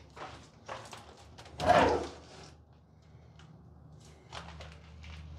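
Steel fallout-shelter door rolling open on its wheels along angle-iron tracks: a few short scrapes and rattles, the loudest lasting about half a second about two seconds in, over a low steady hum.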